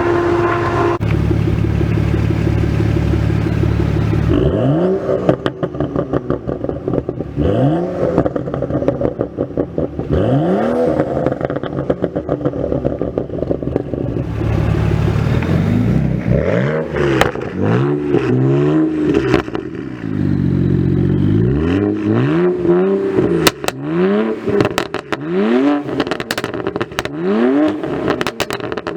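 Exhaust of a BMW turbocharged 3.0-litre inline-six being free-revved: a series of quick blips that rise and fall back to idle, with crackles and pops on the overrun that come thicker in the second half. A steady train horn ends about a second in.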